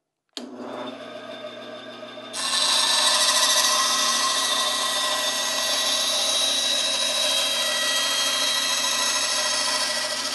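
Benchtop bandsaw running with a steady motor hum, then its blade cutting into a plywood board fed by hand, a loud steady hiss that starts about two seconds in and keeps going.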